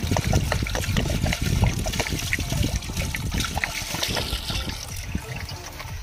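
Water poured from a container splashing and trickling into a large aluminium pot of raw meat pieces, with hands sloshing and rubbing the meat as it is rinsed; a steady pour broken by many small irregular splashes.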